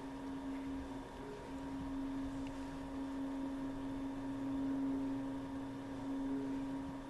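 A steady low hum: one held tone with fainter higher tones above it, swelling a little in level past the middle.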